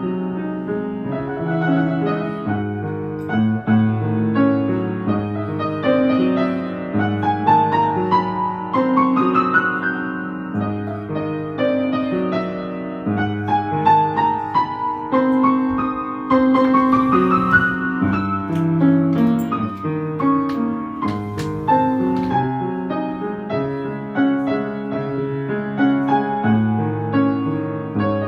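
Background piano music, note after note at a steady level, with rising runs of notes about a quarter and half way through.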